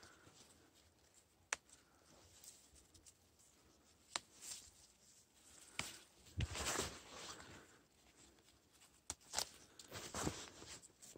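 Leafy shrubs and undergrowth rustling as a gloved hand and body push through the branches, with footsteps on dry leaf litter. Several sharp snaps come through the rustling, the loudest rustle about two thirds of the way in.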